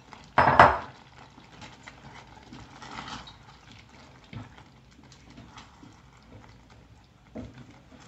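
Plastic spoon stirring sliced sausages in thick tomato sauce in a metal saucepan, with soft scrapes and taps against the pan. A short, loud sound about half a second in.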